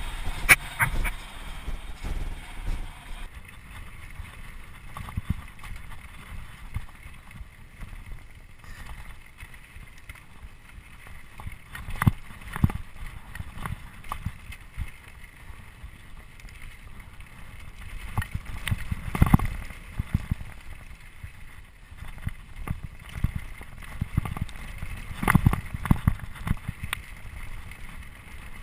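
Trek Remedy full-suspension mountain bike rolling fast down a rocky gravel trail: a steady crunch and rattle of tyres, chain and frame over loose stones, with wind buffeting the microphone. Sharp knocks as the bike hits rocks come now and then, several in quick succession near the end.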